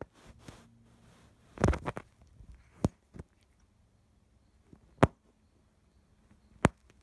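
A few sharp taps and a short scuffle, quiet in between, as a cat paws with its claws out at a carpeted perch and at the camera.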